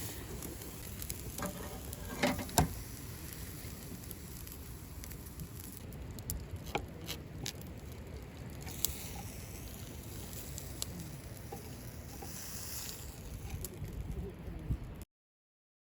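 Fire crackling and sizzling over a steady low rumble, with scattered sharp pops, the loudest a couple of seconds in. It cuts off abruptly about a second before the end.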